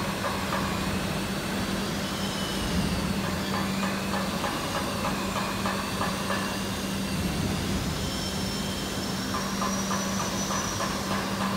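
Steady factory-floor machinery noise: a constant low hum under a hiss, with thin high whines that slowly waver up and down in pitch. A faint rapid ticking comes and goes, mainly near the start and again near the end.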